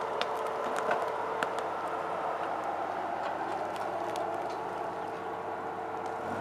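Jeep Cherokee XJ running at low speed as it crawls off-road through brush, with sharp snaps and cracks of twigs and dead branches breaking under the tyres and against the body.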